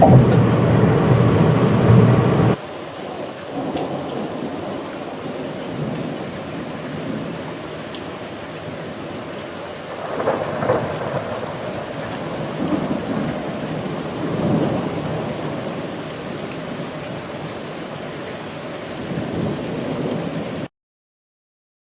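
A louder steady humming sound cuts off about two and a half seconds in. It gives way to steady rain with several rolls of thunder swelling and fading. The storm sound stops abruptly a second before the end.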